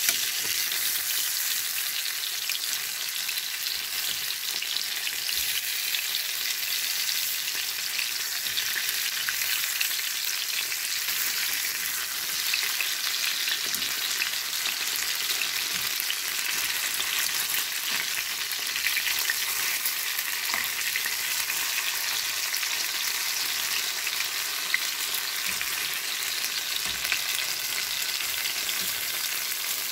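Large head-on shrimp, dusted in flour, sizzling steadily in hot olive oil in a frying pan, with fine crackling throughout. Occasional light scrapes and clicks of metal tongs turning them.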